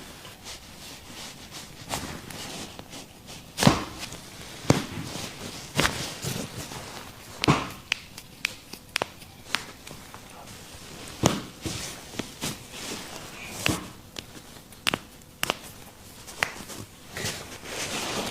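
A series of sharp cracks and pops from a chiropractic back adjustment, irregularly spaced over a dozen times with the loudest about four seconds in, with soft rustling of clothing and the treatment table between them.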